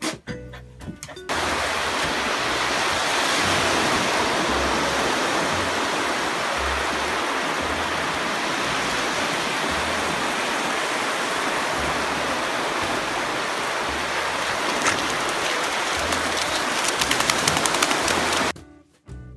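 Steady rush of ocean surf breaking on a sandy beach, loud and even, with background music carrying a soft low beat underneath. The surf cuts off suddenly near the end.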